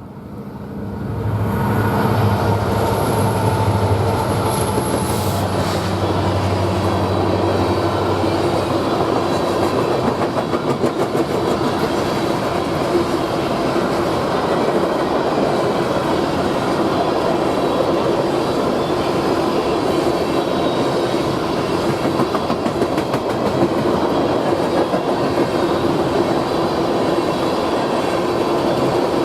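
Diesel freight or passenger train passing close by: the locomotives' engines go past over the first several seconds, then a steady loud rumble of rail cars rolling by with wheel clicks over the rail joints.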